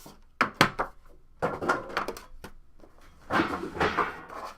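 Trading card box being opened and handled: two sharp clicks about half a second in, then two stretches of rubbing and sliding packaging.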